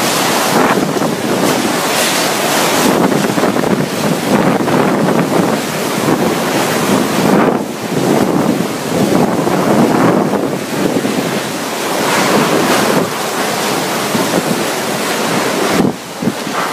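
Typhoon wind blowing in strong gusts with driving rain, buffeting the microphone; the rush surges and eases every second or two and drops briefly near the end.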